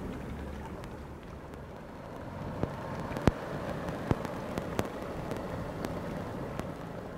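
Outdoor seaside ambience: a steady rushing noise with some low rumble, joined from about two and a half seconds in by a scatter of sharp clicks and taps, one louder than the rest.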